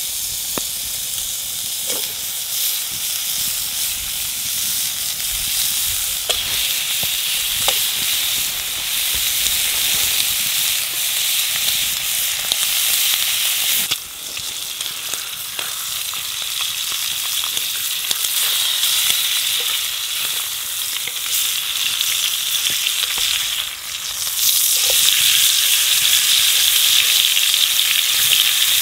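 Food frying in a pan: a steady sizzle with scattered small pops and crackles, briefly dipping twice and louder near the end.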